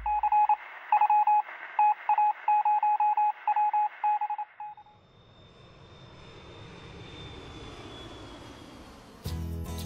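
Sound-effect radio beeps: one steady-pitched tone keyed on and off in short and long pulses, Morse-code style, over hiss. It stops after about four and a half seconds. A propeller-plane fly-by follows, its noise swelling and fading with a faint falling whine. Music cuts in near the end.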